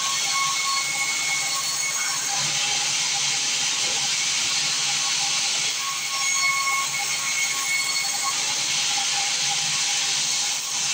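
Sawmill saw cutting through timber, a steady hissing rasp with a high whine from the blade, growing stronger twice: at the start and again about six seconds in.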